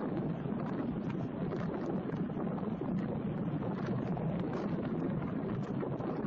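Steady rushing roar of an airliner's jet engines as it climbs away in a go-around, mixed with wind noise on the microphone.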